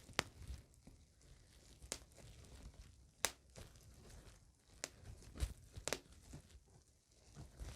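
Bubbles being popped: a handful of sharp, irregularly spaced pops over soft crinkling.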